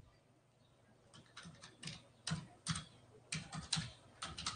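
Faint computer keyboard typing: irregular key clicks starting about a second in.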